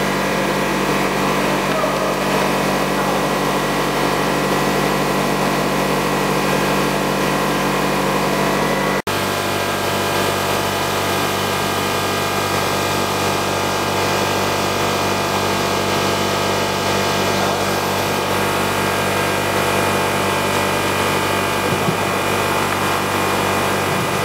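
Blown film plant running: a steady mechanical hum of motors and rollers with several constant tones over a noisy hiss. About nine seconds in the sound cuts off for an instant and returns with a slightly different hum.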